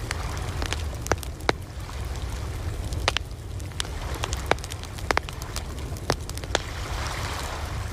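Campfire crackling with sharp, irregular pops over a steady low rumble of ocean surf, with a soft wash of a wave swelling near the end.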